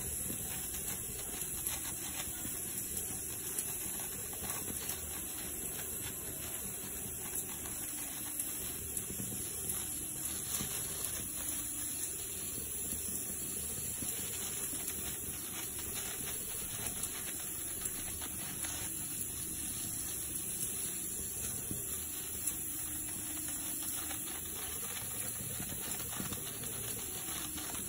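Steady background hiss with a faint, slowly wavering hum, and soft scattered crinkles and pats of a plastic sheet as rice-flour dough balls are pressed flat by hand.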